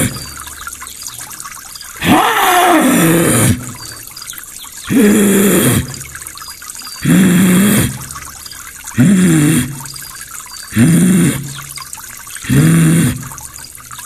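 A man's vocal imitation of an animal call: six loud, hoarse calls about every two seconds. The first is long, with a falling pitch; the rest are shorter and lower.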